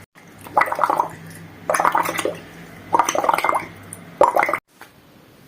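A child blowing bubbles into water as a breathing exercise for the lungs: four short bursts of bubbling, each about half a second long and roughly a second apart.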